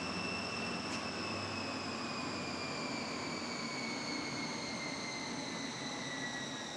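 Horlick 50SC 50 kW 60-to-50 Hz motor generator set running: a steady hum and rush of cooling air from the fans inside the motor and generator, with the mechanical noise of the V-belt drive between them. Over this sits a high whine that sinks slowly and evenly in pitch.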